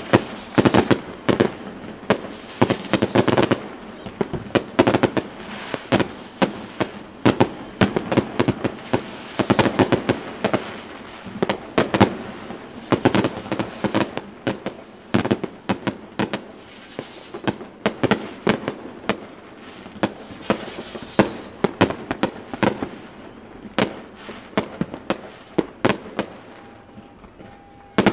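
Fireworks display: a dense, steady run of sharp bangs and booms, often several a second, with a high falling whistle near the end.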